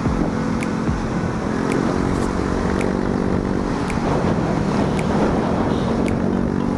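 Motorcycle engine running at steady cruising speed in traffic, with wind rushing over the microphone. A faint tick comes about once a second.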